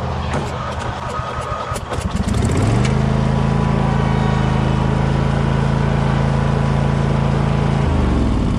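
Husqvarna zero-turn lawn mower engine running. It is uneven at lower speed with a few sharp clicks for the first two seconds, is throttled up about two and a half seconds in to a steady higher speed, and drops back near the end.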